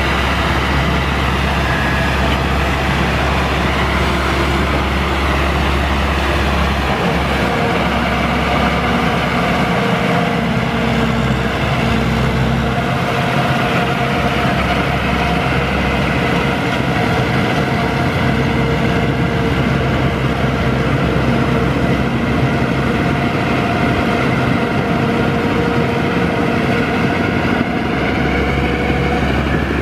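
Crawler tractor's engine running steadily while its rear rotary tiller churns a flooded rice paddy.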